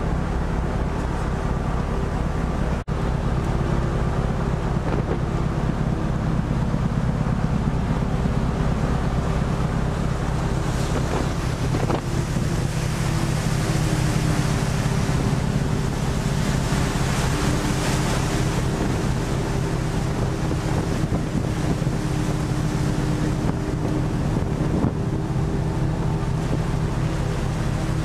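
A fishing trawler's engine and deck machinery running with a steady low hum, over wind buffeting the microphone and rough sea washing alongside; the rush of sea and wind swells in the middle. The sound briefly cuts out about three seconds in.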